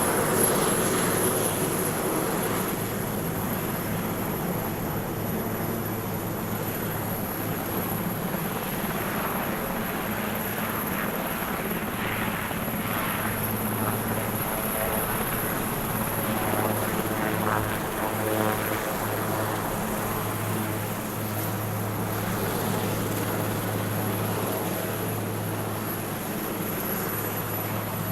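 Helicopter running with a steady, continuous drone that holds level throughout.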